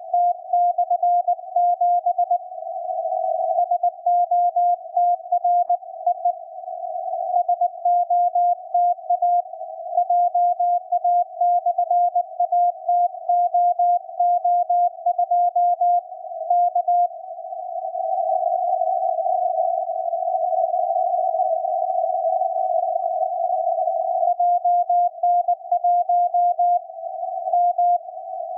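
Morse code signal on the 40 m amateur band heard through a shortwave receiver: a single steady tone keyed on and off in dots and dashes, over hiss held to a narrow band around the tone. For several seconds past the middle the keying stops and only the band hiss is heard, then the dots and dashes resume near the end.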